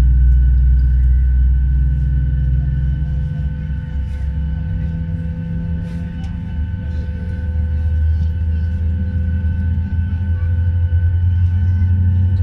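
Boeing 737-800 engine start heard from inside the cabin: a loud low rumble that shifts in pitch about three to four seconds in and swells again near the end as the engine spools up, over several steady whining tones.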